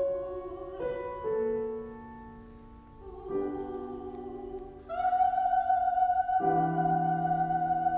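Classical singer and piano performing an art song: a few piano chords that ring and fade, then about five seconds in the singer takes a long, high note with vibrato and holds it over sustained piano.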